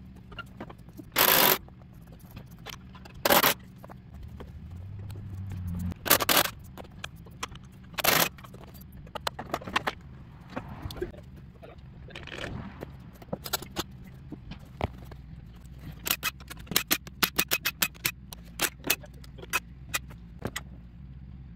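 Cordless impact driver hammering bolts loose on a lawn tractor's rear transaxle in four short bursts over the first eight seconds or so. Later come many light metallic clicks and clatters as parts and tools are handled.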